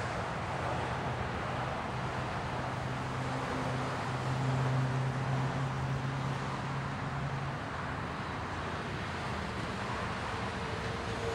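Cars and pickup trucks driving across a railroad grade crossing, with engines and tyres running steadily and an engine hum that is strongest around the middle.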